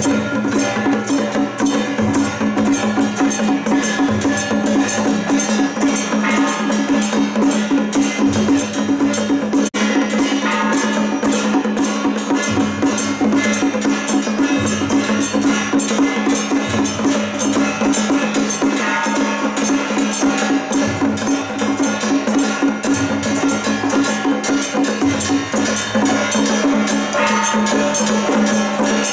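Temple procession music: fast, dense percussion over a steady held drone and a low bass line that changes every couple of seconds, playing without a break.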